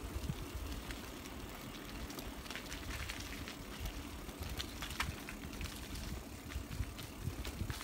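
Bicycle riding along a paved path strewn with wet leaves: steady tyre noise and low rumble, with scattered clicks and ticks from the bike and the leaves.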